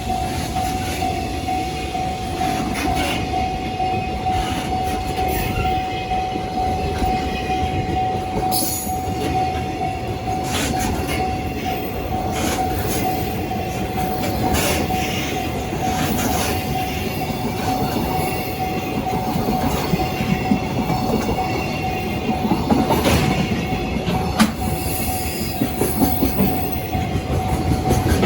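Freight train's wagons rolling past, a dense rumble with irregular clicks from the wheels crossing rail joints, over a steady high tone.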